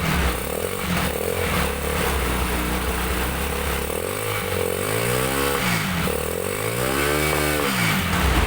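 Freshly installed Jialing 200cc single-cylinder four-stroke engine in a three-wheeled motorcycle, running at a steady idle, then revved up and back down twice about halfway through.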